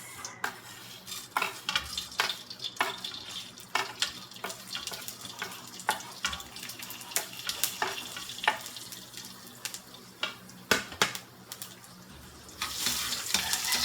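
Fenugreek and cumin seeds frying in hot oil, crackling with many irregular sharp pops. Near the end a louder, steady sizzle starts.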